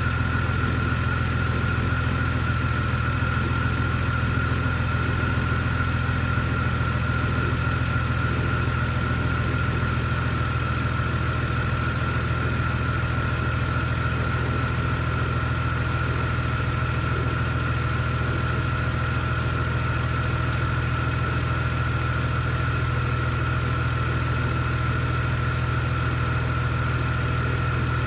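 BMW E46's inline-six engine idling steadily, a constant low drone with a steady high-pitched tone above it.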